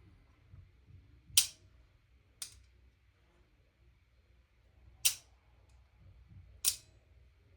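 Sharp clicks from a Maple Leaf MLC LTR airsoft sniper rifle's trigger and sear mechanism being worked by hand, cocked and released. There are four separate clicks spread out over several seconds, and the second is fainter.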